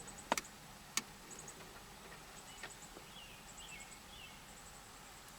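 Two sharp clicks about two-thirds of a second apart, then a fainter one, as a terminal clip is pushed down into a plastic switch-panel connector until it snaps. Faint high insect chirps and a few short bird chirps sound behind.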